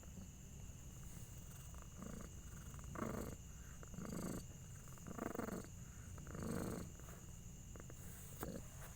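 Mother cat purring during the birth of her kittens, faintly, in about five breathy pulses roughly a second apart starting about two seconds in.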